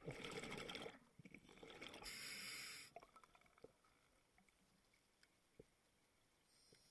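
Scuba diver's breathing underwater: a rush of exhaled bubbles gurgling past in the first second, then the regulator's inhalation hiss about two seconds in, lasting just under a second, followed by faint clicks.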